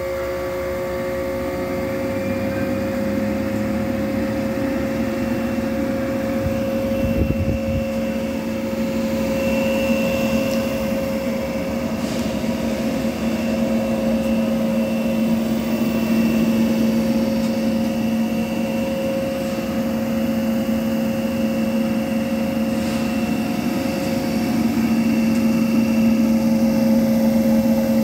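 40-horsepower DC motor running with no load on its shaft, its shunt field fed 300 volts and its armature energised. It makes a steady motor hum with two held tones; the lower tone grows stronger over the first few seconds as the motor settles to speed.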